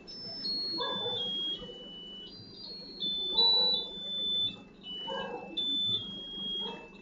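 A simple electronic tune of single high beeping notes, each held a fraction of a second before stepping to the next pitch, like a melody chip, over a low steady murmur.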